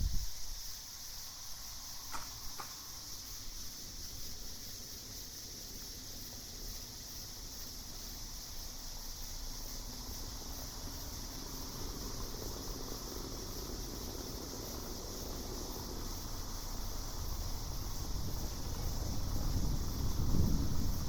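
Night insects keep up a steady, high, continuous chorus. Beneath it a low wind rumble grows louder near the end, and a faint short double chirp sounds about two seconds in.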